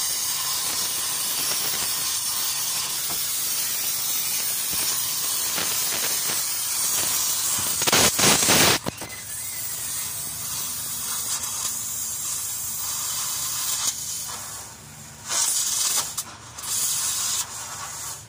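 Oxy-fuel cutting torch hissing steadily as its flame cuts through rusted steel of a van chassis, with a louder rush of gas about eight seconds in and two shorter surges near the end.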